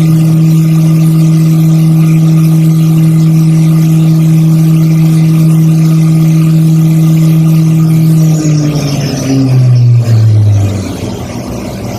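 CNC milling machine spindle running at a steady pitched whine while it engraves lettering into Corian and acrylic harmonica combs. About eight seconds in, the pitch falls in steps and the spindle winds down as the program finishes.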